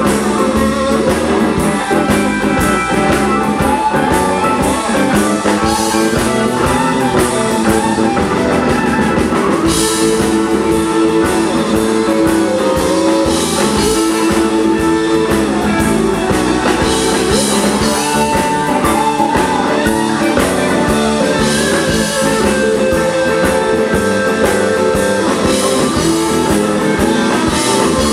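Live rock-and-roll band playing an instrumental break, with electric guitars and a drum kit. The drumming gets brighter about ten seconds in.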